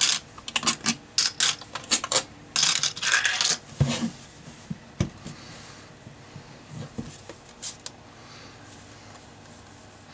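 Small metal screws clinking as they are dropped and handled in a small clear dish, a quick run of light metallic clicks over the first few seconds. After that come a few scattered knocks as the plastic battery case is lifted and handled.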